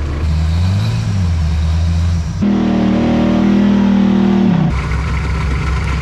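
Off-road competition 4x4 engines revving in three abrupt segments: a low run with a quick rev rising and falling about a second in, then a higher held rev for about two seconds that drops away, then lower steady running.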